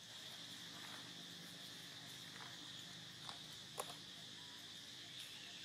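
Faint, steady, high-pitched insect drone, like crickets or cicadas, with a couple of brief clicks about two-thirds of the way through.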